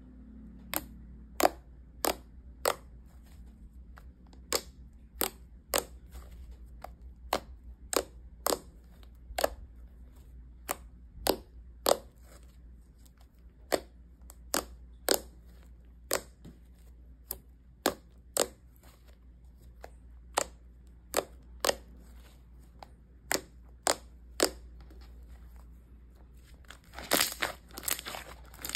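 Slime being pressed and worked by hand, giving sharp pops and clicks about once or twice a second. A short burst of crackling comes near the end.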